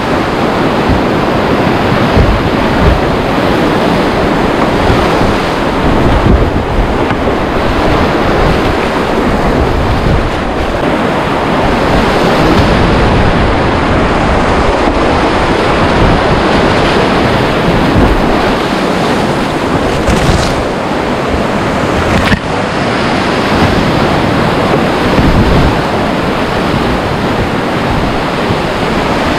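Whitewater rapids of a flooded, muddy river rushing steadily and loudly around a kayak, with wind buffeting the microphone.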